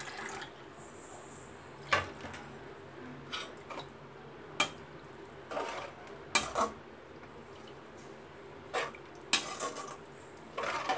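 Perforated steel spoon stirring a watery vegetable curry in a metal pot. It clinks and scrapes against the pot's sides and bottom about nine times at irregular intervals.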